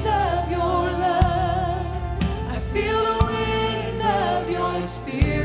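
A woman singing a gospel song solo into a microphone, holding long notes with vibrato, over a live band with bass and a steady drum beat.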